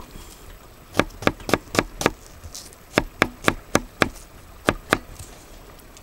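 Opinel knife mincing onion on a wooden cutting board: sharp chops of the blade striking the board, about four a second, in two runs of five with a short pause between, then two more.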